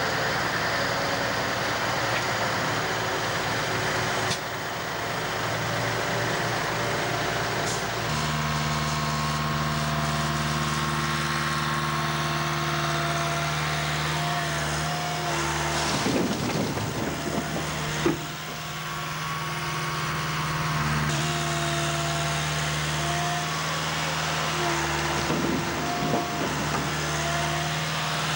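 Diesel engine of a wheeled excavator running steadily under hydraulic work. Twice, a grab-load of sugar beets drops with a rough rattle into a trailer.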